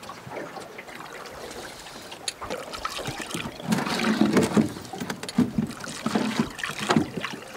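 River water lapping and sloshing against the side of an aluminum boat hull, getting louder and more uneven from about halfway through.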